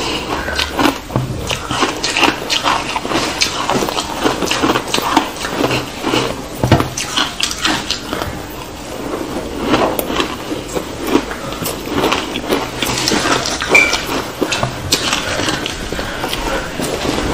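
Close-miked crunching and chewing of matcha-dusted ice, two people's bites layered together: many irregular crisp crunches.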